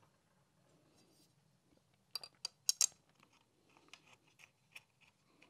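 A few sharp little metal clicks and taps, bunched about two seconds in, with fainter ticks near the end, as a bolt is fitted through the brace of a Porsche G50 clutch and brake pedal assembly.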